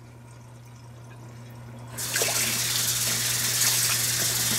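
Sink faucet turned on about two seconds in, hot water running hard and splashing over a brass clock movement as it is rinsed of soap.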